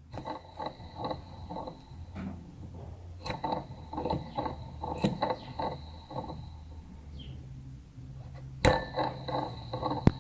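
Turbocharger of a Ford FG Falcon XR6 Turbo making bursts of rapid metallic clinking, about five ticks a second, in three groups with a thin high ringing tone that lingers after each. A sharp louder click starts the last group. The owner put this kind of noise after engine shutdown down to the turbo's bearings wearing out.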